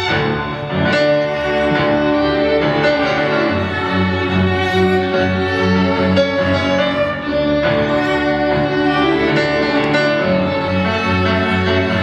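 Live instrumental music: a grand piano playing a flowing passage over sustained bowed-string tones.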